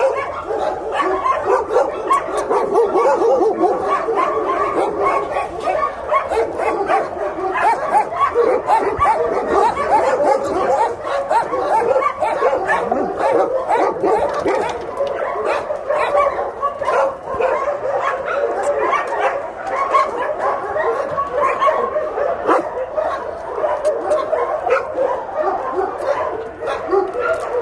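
Several dogs barking, yipping and whining at once in a continuous, overlapping chorus.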